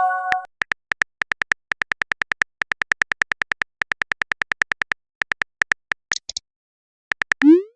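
Simulated phone-keyboard typing clicks from a texting-story app: a fast run of short, identical ticks, about eight a second, with a few brief pauses. It opens on the tail of a chime and ends with a short rising pop.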